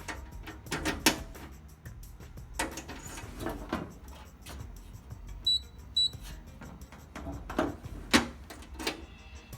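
Fire alarm demonstration system sounding: a fast, even run of strokes, with several louder knocks and a couple of short high beeps about five and a half seconds in.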